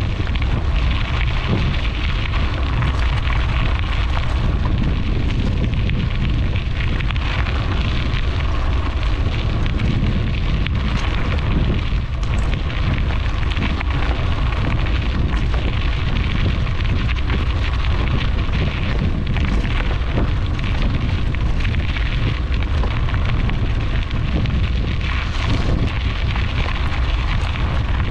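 Steady wind buffeting on a bike-mounted microphone, a dense low rumble, mixed with the crackling hiss of bicycle tyres rolling over a gravel track.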